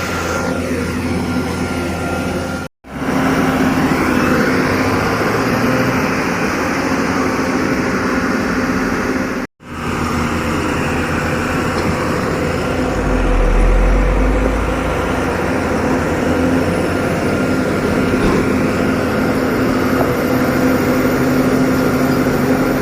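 Heavy truck engines running steadily under load while a tipper truck is hauled up a steep hill, with a deep rumble swelling about two-thirds of the way through. The sound cuts out completely twice for an instant, about three and nine seconds in.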